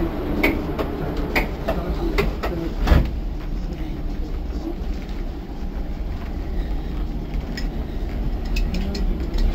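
Footsteps along the aisle of a stationary passenger train carriage, about two a second, with a single louder thump about three seconds in. Under them runs the carriage's steady low rumble, and a few more steps come near the end.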